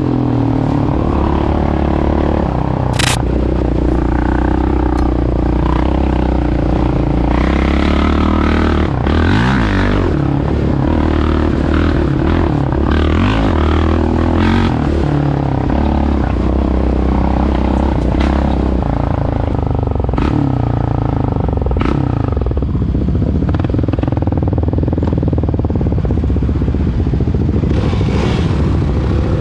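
Yamaha Raptor 700R quad's single-cylinder four-stroke engine running under a varying throttle, its pitch rising and falling, with clattering and occasional sharp knocks from the machine over rough ground.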